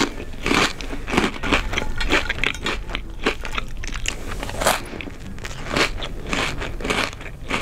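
Close-miked chewing of crunchy Cheetos: a quick, irregular run of loud crunches and crackles as mouthfuls are bitten and chewed.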